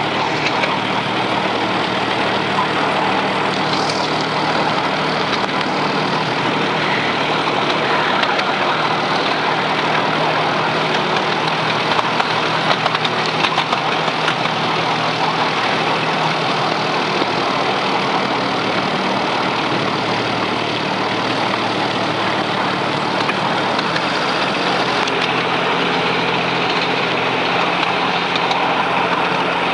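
Ride-on miniature GP40-outline locomotive on 7¼ inch gauge track running steadily. Its engine hums low under a constant rushing noise of the train moving along the rails, heard from the carriage right behind it.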